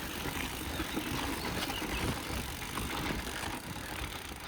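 Shulz BDC bicycle rolling over rough ground, with an uneven rattle of small knocks from the bike, over steady wind noise.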